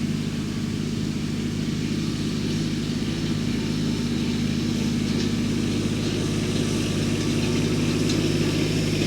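Kubota L3200 compact tractor's three-cylinder diesel engine running steadily at an even speed.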